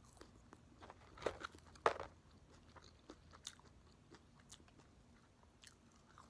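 Close-up eating sounds of a person chewing curly fries: quiet wet mouth sounds with scattered short bite clicks, the loudest a little over one second in and again about two seconds in.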